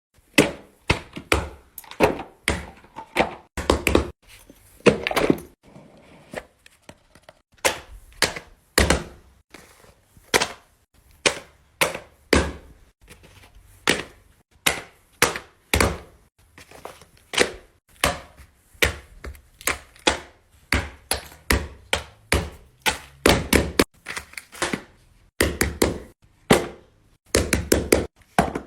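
A long run of sharp knocks and taps, irregular, about one to three a second, like a hard object being struck or snapped repeatedly.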